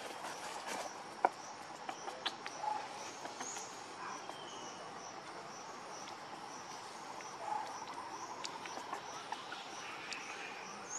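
Outdoor insect chorus, a steady high buzz with a regular pulsing call about twice a second, with a few faint clicks and chirps; one sharp click about a second in is the loudest sound.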